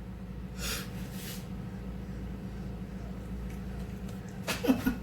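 A puppy snorting twice in quick short breaths, then a quick cluster of knocks and a brief squeak near the end as it is handled, over a steady low hum.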